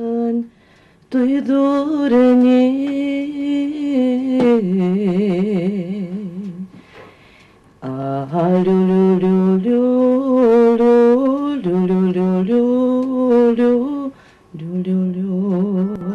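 A woman's solo voice chanting a slow folk incantation (descântec) over a child, in held, wavering notes sung phrase by phrase, with short breaks between phrases about a second in, about halfway through and near the end.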